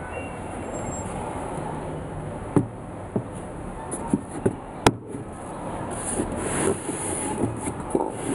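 Handling noise: about half a dozen sharp taps and knocks between about two and a half and five seconds in, then a brushing, rubbing sound, over a steady background hiss.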